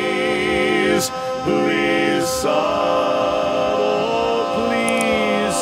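A cappella barbershop quartet singing the closing jingle in close harmony, ending on a long held chord that starts about halfway through.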